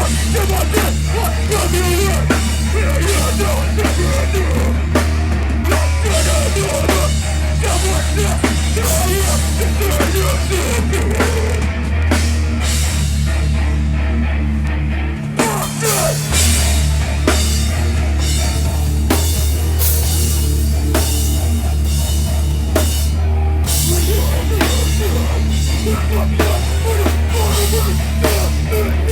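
Live heavy metal band playing loud, with distorted guitars, heavy bass and pounding drums; the bass drops out briefly about halfway through.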